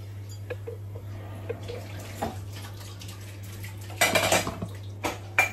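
Glass pot lid clattering as it is set back onto a metal pot of rice, loudest about four seconds in, after a few light clinks. A steady low hum runs underneath.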